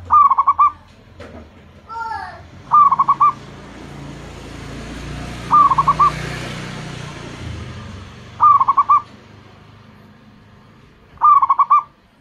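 Zebra dove (perkutut) cooing: five short phrases of quick staccato notes, one about every three seconds.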